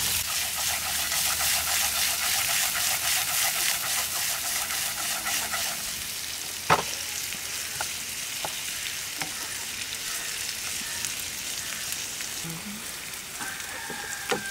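Chicken and vegetables sizzling in oil in a nonstick frying pan while being stirred with a wooden spatula. One sharp click is heard about seven seconds in, and the sizzle eases slightly in the second half.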